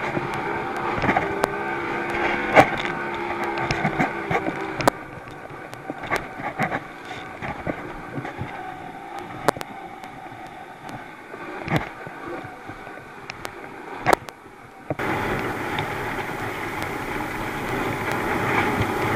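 Thundercat racing inflatable's outboard motor running as the boat slams through swell, with sharp slaps of the hull and spray hitting. The engine note fades after about five seconds, and about fifteen seconds in the sound switches abruptly to a loud rushing of wind and water.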